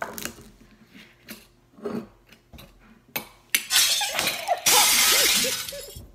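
Glass rosé wine bottle being uncorked: small clicks and creaks from the cork, then a sharp pop about three and a half seconds in. Two women whoop and cheer loudly right after.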